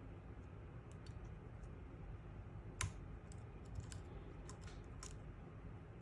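Scattered light clicks and ticks of small tools and parts being worked in a Browning X-Bolt rifle's trigger assembly while fitting a trigger spring, with one sharper click about three seconds in.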